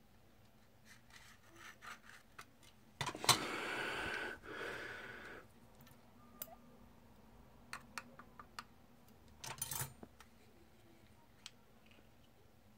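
Snap-off utility knife blade prying apart the plastic shell of a BMW remote key. A sharp crack comes about three seconds in, followed by a couple of seconds of scraping. After that there are scattered light plastic clicks and a shorter scrape near ten seconds in as the casing comes apart.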